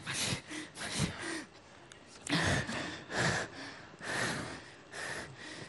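A man breathing hard in short, loud gasps, about six of them roughly a second apart.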